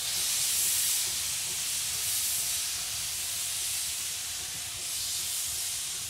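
Steam locomotive C58 363 venting steam from its cylinder drain cocks while moving off slowly: a loud, steady hiss that starts abruptly.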